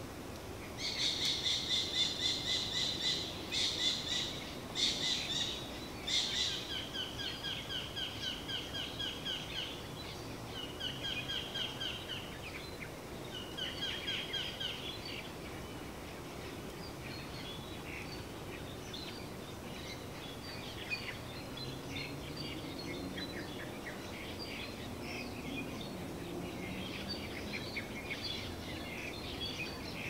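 Birds singing: one bird close by sings loud, fast runs of repeated high notes for the first ten seconds or so, then shorter phrases, after which fainter chirps from several birds carry on over steady background noise.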